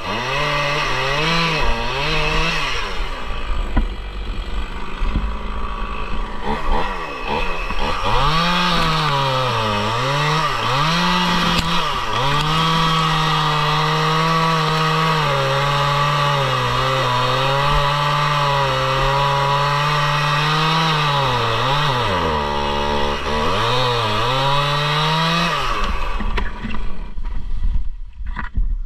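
Stihl two-stroke chainsaw bucking an oak log. The engine revs up and down in several dips, then is held at full throttle through a long steady cut, and drops off near the end.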